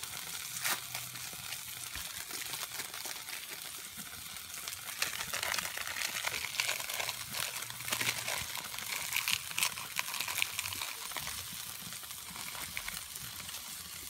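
Beef burger patty sizzling on a flat-top griddle: a steady hiss with crackling pops of spitting fat, busiest in the middle.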